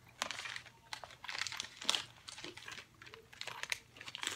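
Plastic snack-bag packaging crinkling as it is handled, in short, irregular rustles.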